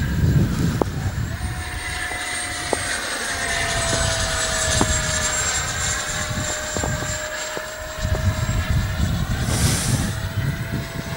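Electric ducted fan of a Freewing MiG-21 RC jet whining steadily in flight, with a high whistle above the main tone; the pitch sags a little through the middle and climbs slightly again as the jet passes. Wind buffets the microphone with a low rumble, strongest near the start and again near the end.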